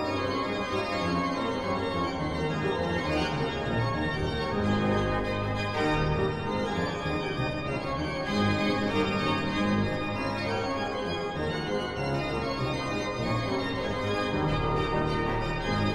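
Organ music: full held chords over sustained bass notes that change every second or two.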